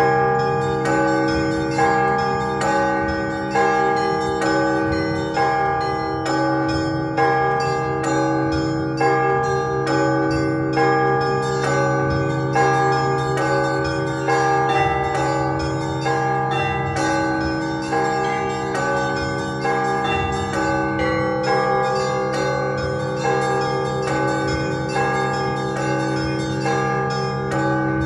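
Russian Orthodox church bells ringing a festive peal (trezvon). Several bells are struck together in a repeating pattern: small bells chime rapidly over the hum of larger bells, with a heavier stroke about once a second.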